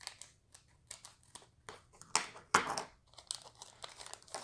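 Baseball trading cards being handled: light clicks and rustles as cards are slid off the stack and set down, with two louder rustles a little past the middle.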